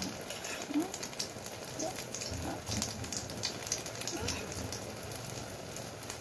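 Egg and stuffed eggplant slices frying in oil in a metal wok: a steady sizzle with scattered crackles and pops.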